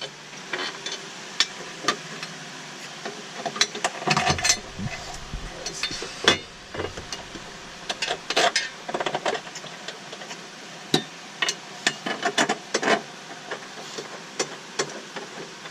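Irregular metallic clinks, clicks and knocks as the metal braces and their bolts are handled and fitted back into a Tesla Model 3, with no steady rhythm.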